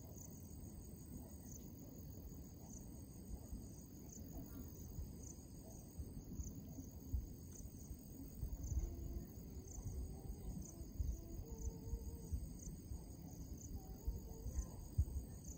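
Insects chirping in a steady high-pitched chorus with a regular pulse, over a low, uneven rumble of wind on the microphone.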